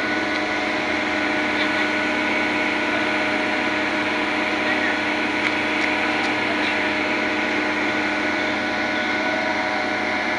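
SANY truck-mounted crane's engine running at a steady speed, with a steady mechanical whine of several held tones.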